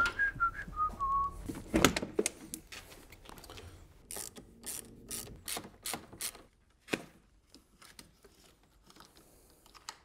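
A man whistling a short tune that steps down in pitch and stops about a second in, followed by a run of sharp clicks and knocks, about two a second for a couple of seconds, as hands work loose trim and parts at the door frame of a BMW E38 with its door panel off.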